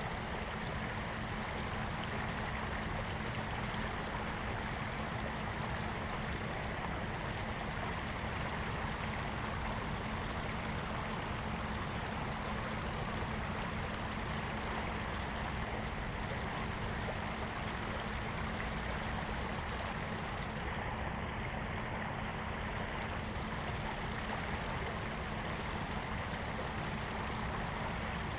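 Shallow, rocky stream water flowing and rushing steadily over rocks.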